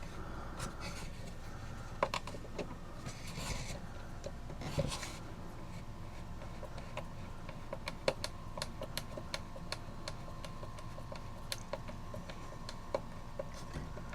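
Scattered light clicks and taps of small clock parts and tools being handled during reassembly of a cuckoo clock, with brief rubbing and scraping about three to five seconds in.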